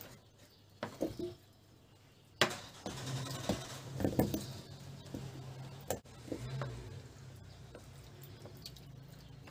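Raw potato wedges tipped from a bowl with a wooden spoon, dropping and knocking into a black enamel roasting pan in scattered knocks: one sharp knock about two and a half seconds in, a busier clatter just after, and a few more knocks near six seconds.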